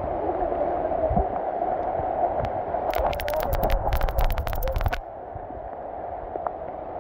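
Heavy rain falling steadily, a continuous hiss. From about three to five seconds in, a run of sharp clicks and a low rumble close to the microphone rides over it, then the overall sound drops a little.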